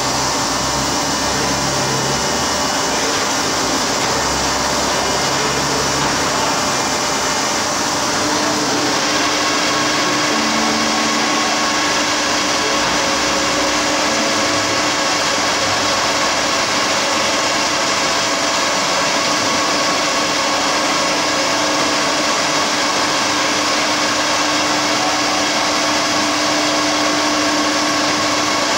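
Kearns Richards NC125 CNC horizontal borer running, a steady mechanical whir with a constant tone. About eight seconds in, a higher whine drops away and a steady low hum comes in.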